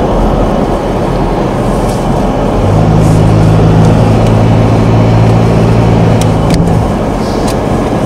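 Road and engine noise inside a moving car: a steady rush of tyre and road noise. A low engine hum comes in about three seconds in and drops away near seven seconds, with a few light ticks near the end.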